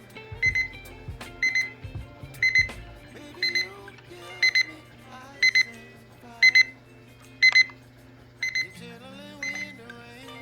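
Keekit LED digital alarm clock sounding its alarm: short, high electronic beeps coming in quick pairs about once a second.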